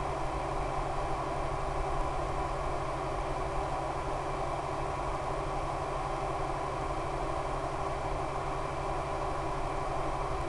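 Steady noise with a low buzz from a radio-control plane in flight, heard through its onboard FPV video link's audio: airflow and the brushless electric motor turning the propeller.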